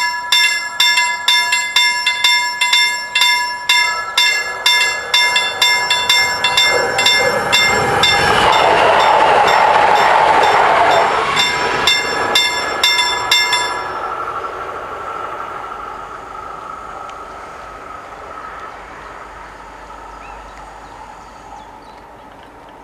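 Level-crossing warning bells ringing in a fast, even clang while a Skånetrafiken X61 electric multiple unit passes with a loud rush of wheel and running noise about eight seconds in. The bells stop about fourteen seconds in, and the train's hum fades away.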